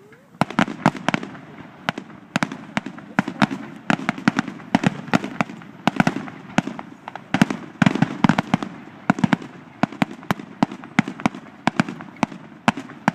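Fireworks going off in a dense, irregular barrage of sharp bangs and crackles, several a second, starting about half a second in.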